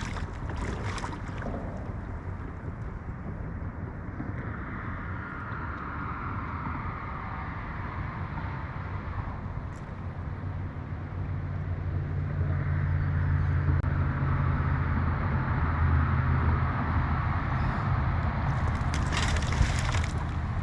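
Boat motor running with a steady low hum that grows louder about halfway through, over wind and water noise.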